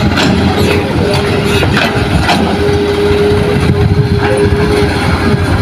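Hitachi hydraulic excavator's diesel engine running under load while it digs, with a steady whine joining about two seconds in and occasional sharp knocks of rock and bucket. A dump truck's engine idles alongside.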